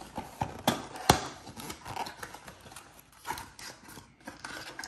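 Cardboard packaging being handled: a string of irregular light taps and knocks with rustling as box flaps are opened and the contents shifted, with one sharper knock about a second in.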